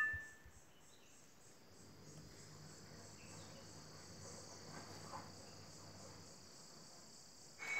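A short ringing glass clink right at the start as the stone on its thread knocks against the water glass, then a faint, steady high-pitched chirring in the background, with a second short clink near the end.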